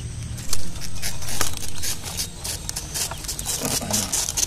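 Fresh banana leaves rustling and crackling in irregular bursts as they are folded and pressed into a parcel around a fish, loudest in the first two seconds.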